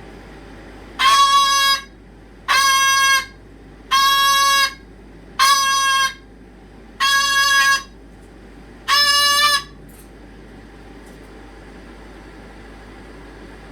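A pet animal calling over and over in a long protest: six evenly spaced, loud, steady-pitched calls, each under a second long, then the calling stops.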